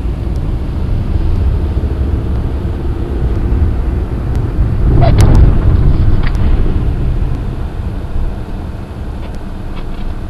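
Steady low rumble of a car being driven, with a brief louder noise about five seconds in.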